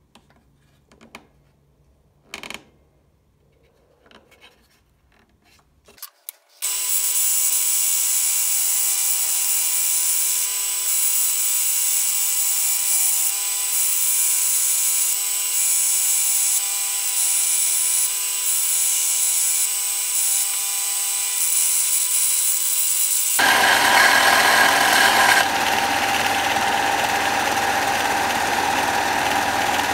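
A few light clicks and taps, then a Ryobi BDS-1010 belt sander comes in abruptly about six seconds in and runs steadily, grinding a woodturning gouge held against the belt in a sharpening jig. Near the end the sound turns coarser and fuller.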